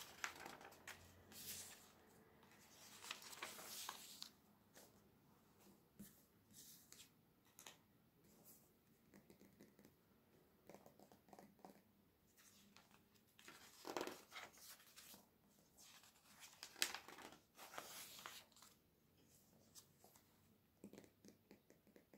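Pages of a glossy paper catalogue being turned and smoothed by hand: soft rustles and crinkles of paper that come and go, with louder page turns about 14 and 17 seconds in.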